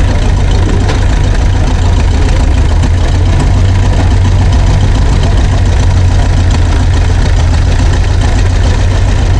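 Old farm tractor engine idling steadily and loudly, running smooth, 'like a sewing machine'.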